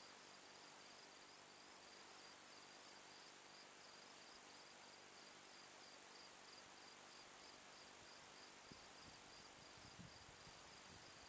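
Faint insects in the grass: crickets keeping up a steady high trill with a regular pulsed chirp beneath it, over near-silent open air.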